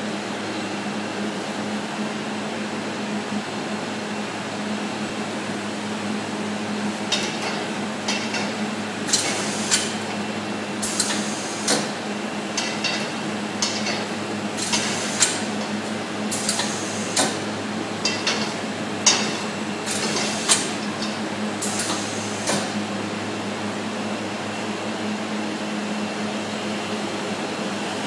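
Automatic in-line carton sleeve-wrapping machine running: a steady mechanical hum with a low tone, and from about a quarter of the way in until about four-fifths through, a string of sharp, irregular clacks and clatters from the wrapper's moving parts.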